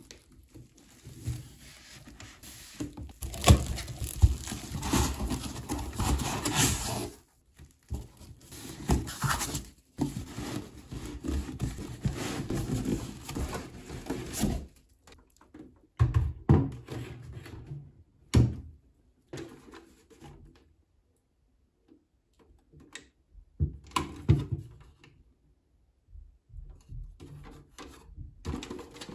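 Plastic stretch wrap crinkling and tearing as a cardboard box is unwrapped by hand, in two long spells. These give way to cardboard rustling and a few sharp thuds as the box is opened and handled.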